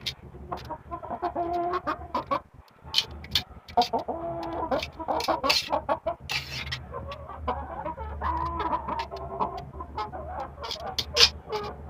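Chickens clucking and calling, with many short sharp notes over longer pitched calls that bend in pitch, and a low steady hum underneath.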